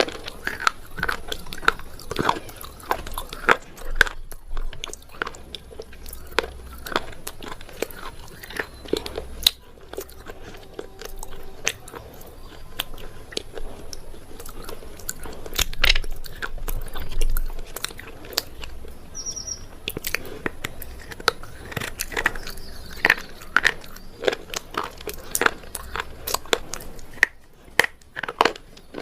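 Someone biting and chewing a dry, hard, unwetted material, with many sharp, irregular crunches close to the microphone.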